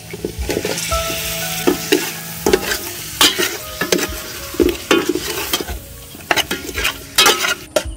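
Pieces of fish sizzling as they go into hot oil and kroeung paste in a metal pot, with a metal ladle scraping and clinking against the pot as it stirs them. The sizzle is strongest in the first few seconds.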